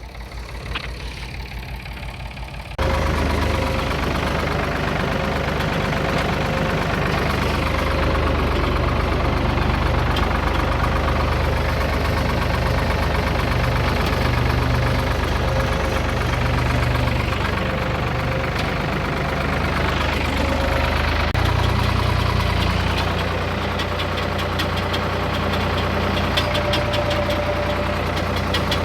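Engine of the vehicle dragging a dead truck, running steadily under load. It comes in abruptly about three seconds in, and a fast clicking rattle joins it near the end.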